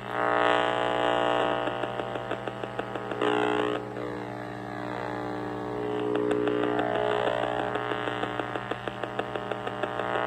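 Radio-frequency meter's audio output buzzing loudly as it picks up microwave leakage from a running microwave oven, a harsh pitched drone with a rapid crackle, its tone sweeping and shifting a few times.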